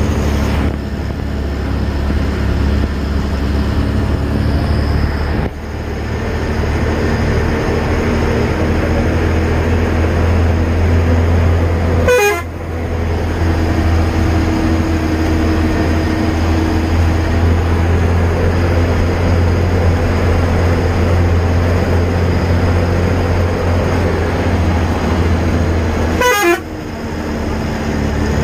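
Motor vehicle's engine running steadily while driving, heard as a constant low drone with steady tones over it. Twice, about 12 and 26 seconds in, a brief falling sweep cuts across it, followed by a short dip in loudness.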